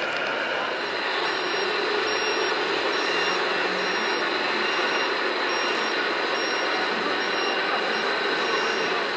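Steady din of an indoor RC model show, with the running of scale construction models, including an RC Volvo wheel loader working sand. A faint high beep repeats about every three-quarters of a second, like a reversing alarm.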